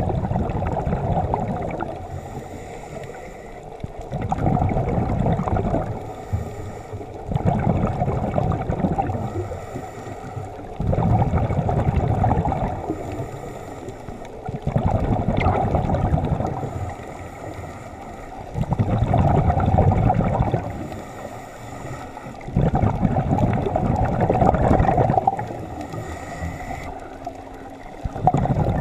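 Scuba diver's exhaled breath bubbling out of the regulator underwater, recorded by an underwater camera: a burst of gurgling bubbles every three to four seconds, with quieter gaps between breaths.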